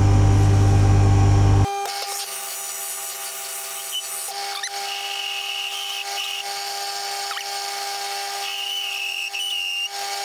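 Metal lathe centre-drilling a hub with a large centre drill in the tailstock chuck, sped up to eight times, giving a high steady whine with brief squeals from the cut. It opens with a loud low hum that cuts off abruptly about two seconds in.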